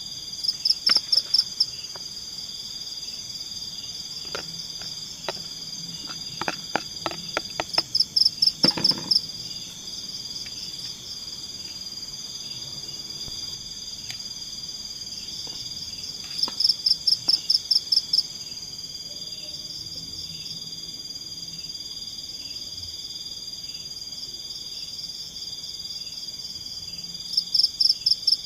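Forest insect chorus: a steady high-pitched drone of crickets, with a louder call of about six to eight rapid chirps repeating four times, roughly every eight or nine seconds. A few faint clicks and knocks come between about four and nine seconds in.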